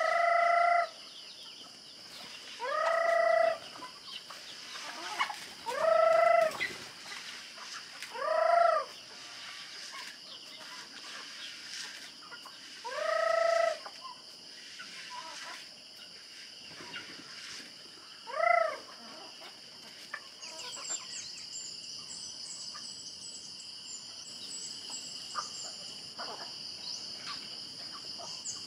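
Free-range chickens being fed: six loud, drawn-out calls of about a second each ring out over the first two-thirds, with faint pecking and scratching between them. A steady high insect buzz runs underneath, and short high chirps come in near the end.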